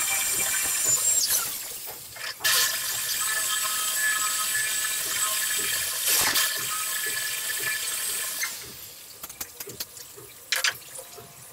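Electric drill boring into a very hard wall with a steady high whine. It runs for about a second, stops briefly, then runs again from about two and a half seconds in for some six seconds before stopping; a few light clicks and knocks follow near the end.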